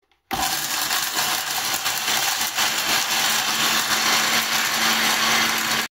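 Small electric mixer grinding a dry mix of dried fish, dried crayfish, kablé stems, soumbala powder and salt into powder: a loud, steady whir with a constant motor hum under it. It starts abruptly just after the start and cuts off suddenly near the end.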